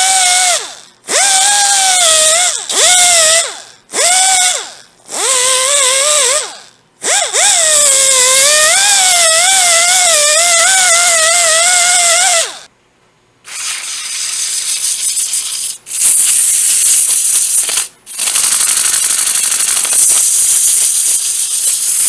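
Pneumatic rotary tool with a round cutter whining in about six bursts as it is started and stopped, its pitch wavering and dipping as the cutter bites into cedar. A little after halfway it stops, and after a short break a loud, steady hiss takes over.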